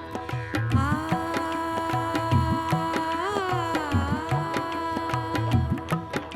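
Background music: held melodic tones that bend in pitch around the middle, over a steady tabla-like drum beat.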